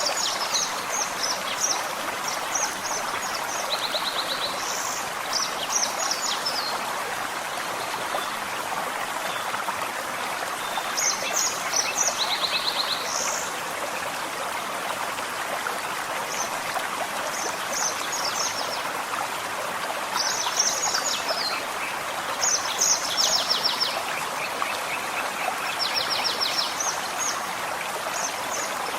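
Forest stream flowing steadily, with songbirds singing short phrases of rapid high notes and trills over it every few seconds.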